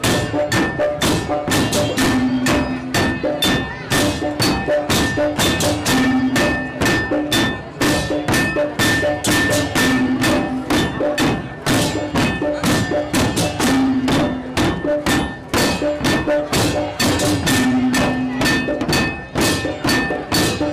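Balinese tek-tekan ensemble: wooden and bamboo beaters (okokan, tektekan) and barrel drums struck in a fast, steady, interlocking rhythm, with the ringing pitches of gamelan gongs. A short gong phrase comes back about every four seconds.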